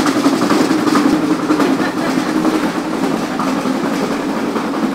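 Steady din of a busy indoor market food hall: a dense wash of background voices over a low, even hum.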